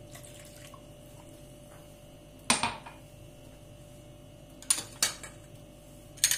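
Glassware clinking as a drinking glass and small glass ingredient dishes are set down and picked up on a countertop: one sharp ringing clink about two and a half seconds in, then a few lighter clinks near the end, over a faint steady hum.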